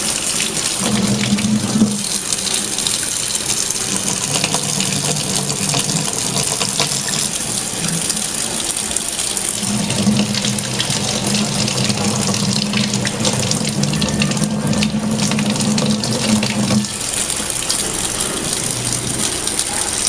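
Kitchen faucet running, a steady stream of water splashing into the sink. A low steady hum comes and goes underneath.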